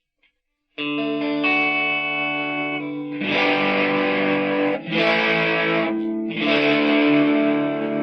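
Electric guitar played through a BOSS Blues Driver BD-2 overdrive pedal: after a moment of silence a chord rings out, then louder, gritty overdriven chords are strummed, with short breaks between them.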